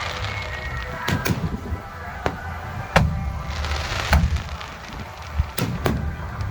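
Aerial firework shells bursting: about seven sharp bangs at irregular intervals, some in quick pairs, with crackling after a burst near the middle.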